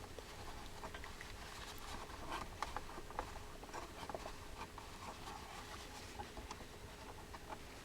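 Faint irregular rubbing and scratching with small clicks and taps: flux residue being wiped and scrubbed off freshly soldered joints on a circuit board.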